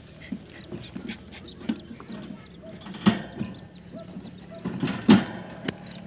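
Wooden nest box being handled and opened by hand: light knocks and scrapes on the wood, with two louder knocks about three and five seconds in, over faint high chirps of aviary birds.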